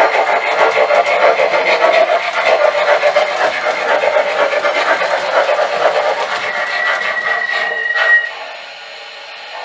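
MTH Rail King Pennsylvania 2-8-0 O-gauge model steam locomotive's Proto-Sound 2.0 sound system chuffing in a steady rhythm, with its wheels running on the metal track. Near the end a single high steady tone sounds for about a second and a half. Then the locomotive stops, and the sound drops to a quieter steady hiss.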